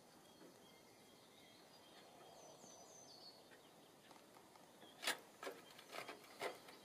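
Near-silent woodland quiet with a few faint, short falling bird chirps about two to three seconds in, then a handful of sharp taps and knocks over the last two seconds, the first of them the loudest.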